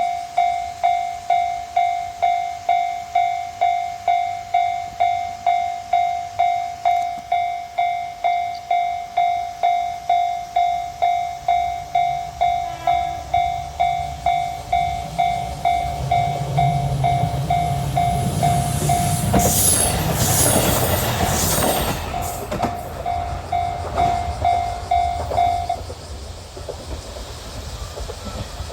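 Japanese level-crossing warning bell ringing steadily at about two dings a second while a diesel train approaches and passes, its rumble and wheel clatter loudest about two-thirds of the way in. The bell stops a few seconds before the end.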